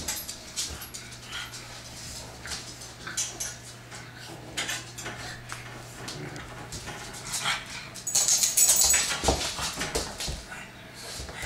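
A bloodhound puppy and pugs playing on a hardwood floor: nails clicking and small clattering sounds, with a louder stretch of scuffling and dog noise about eight seconds in.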